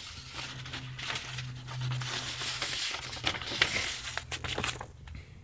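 Paper sheets rustling and crinkling as they are handled, with many small clicks, over a steady low hum; the rustling dies away near the end.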